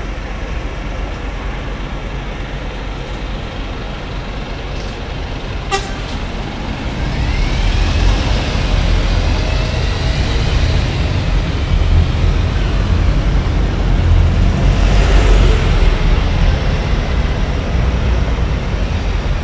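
Double-decker city bus pulling away along a busy street: a low engine rumble that grows louder about a third of the way in, with a rising whine as it moves off and a short hiss about three-quarters through. Street traffic runs underneath, with one sharp click shortly before the bus gets louder.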